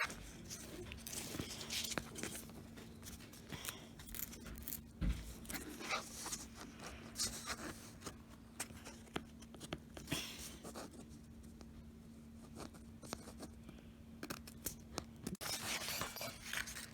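Scissors snipping through construction paper in a run of irregular cuts, with the paper rustling between snips.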